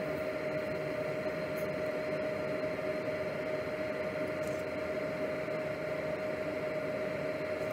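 Fume extractor fan running steadily: an even rushing noise with a constant hum.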